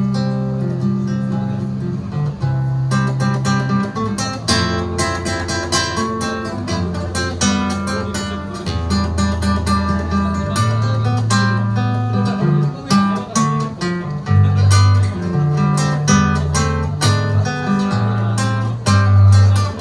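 Acoustic guitar played solo: held chords ring for the first few seconds, then steady rhythmic strumming starts about three seconds in and carries on, with moving bass notes under it.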